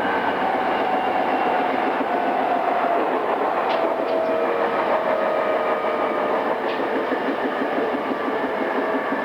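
A JR East E217 series electric train heard from inside a motor car while running. The whine of its inverter and traction motors holds several tones that slowly fall in pitch as the train slows, over the steady rumble and rhythmic clatter of wheels on rail.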